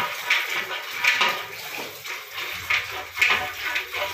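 Water buffalo being hand-milked: streams of milk squirting into a container in a steady rhythm, a squirt roughly every half second. A low hum joins about two and a half seconds in.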